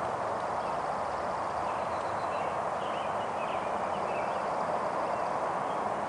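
Hoofbeats of a ridden horse moving on arena dirt, faint under a steady outdoor hiss. A few short high chirps come around the middle.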